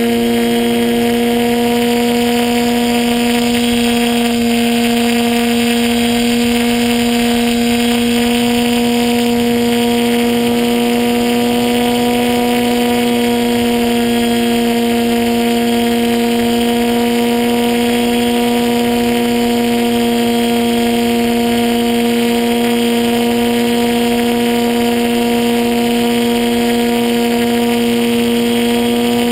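RC model plane's motor and propeller droning at a steady pitch, heard from a camera on board the plane, with rushing air noise over it.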